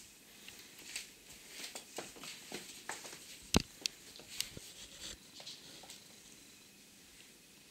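A papillon's claws clicking and scuffling on a hardwood floor as it plays and tugs at a sock on a foot: scattered quick ticks, with one sharp knock about three and a half seconds in, dying away after about five seconds.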